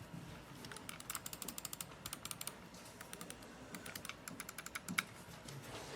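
Mechanical keyboard being typed on: fast runs of light clicking keystrokes, with a louder single click about five seconds in.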